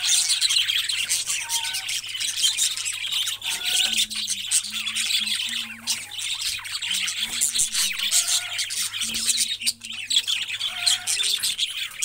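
A flock of budgerigars chattering, chirping and squawking continuously, many birds calling over one another.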